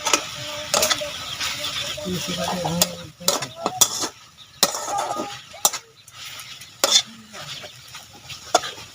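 A metal spoon stirring and scraping in a metal cooking pot, with a dozen or so sharp clinks of metal on metal scattered irregularly over a steady hiss.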